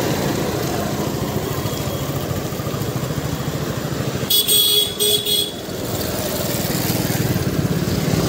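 Street traffic with motorcycle engines running close by; about four seconds in, a vehicle horn honks three times in quick succession, the first toot the longest.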